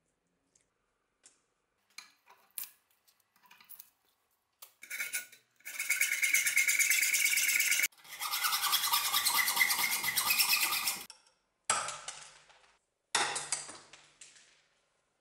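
Hacksaw cutting the rusty steel of an old hatchet's handle clamped in a vise. A few scattered clicks of handling come first, then about five seconds of fast continuous sawing with a brief break in the middle, and two shorter strokes that fade out near the end.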